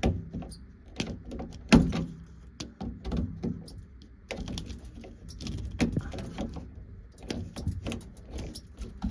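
Flathead screwdriver prying and twisting at the metal bracket that holds a front-loading washer's drain pump. Irregular clicks, knocks and scraping, with one sharper knock about two seconds in.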